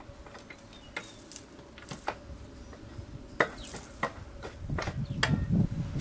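Scattered metallic clicks and knocks as the greased rear axle of a Royal Enfield Himalayan is pushed through the chain adjuster and wheel hub, the sharpest about three and a half seconds in. A low rumbling handling noise builds in the last second or so.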